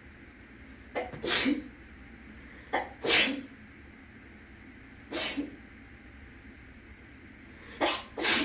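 A person sneezing four times, roughly every two seconds. Most sneezes have a short catch just before the main burst. The sneezes are being set off by clothing tags tickling the nostril. A fan in the next room hums steadily underneath.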